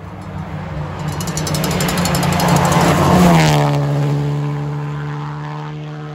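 Rally car engine at speed as the car approaches on a dirt stage, growing louder and passing close about three seconds in. Its note drops in pitch as it goes by, then fades as it drives away.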